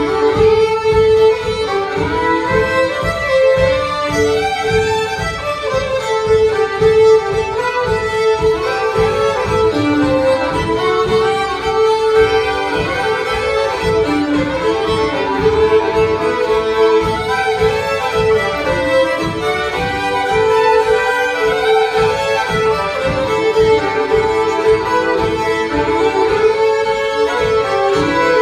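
Four fiddles playing an old-time fiddle tune together, with a steady drone note held under the melody.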